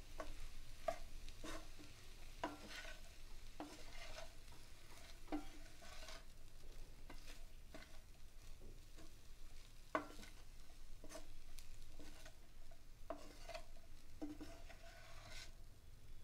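Wooden spatula stirring and turning cooked rice in a pan, each stroke a short scrape or tap against the pan, coming irregularly about once or twice a second, as the rice is mixed into tamarind paste for tamarind rice.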